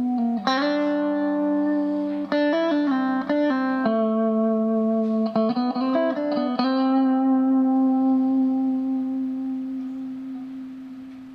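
Electric guitar played through a Behringer compressor pedal: a slow phrase of picked notes, the last one held with long sustain and slowly fading out.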